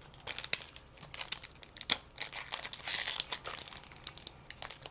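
Foil wrapper of a Pokémon booster pack crinkling as it is handled and opened, a busy run of sharp crackles and rustles.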